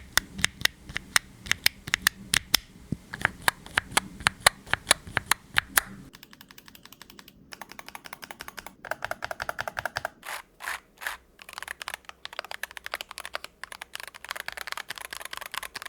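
Cidoo C75 mechanical keyboard with Gateron KS-20 Even Free linear switches being typed on; the switches are not especially loud. Separate key presses come about three or four a second for the first six seconds, then give way to faster, continuous typing.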